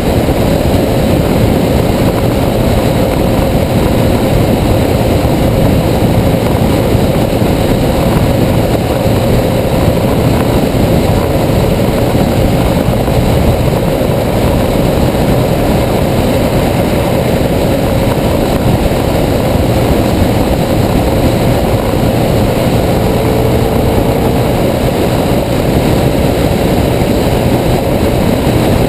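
2009 BMW R1200GS flat-twin engine running at a steady cruising speed, mixed with wind rushing over the microphone and a constant rattle from the loose, broken camera mount.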